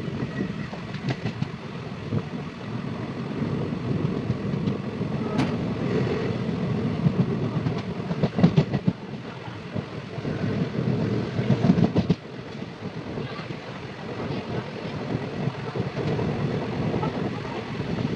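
Train running along the line, its wheels clattering over the rails above a steady rumble. The clatter is loudest about eight to twelve seconds in.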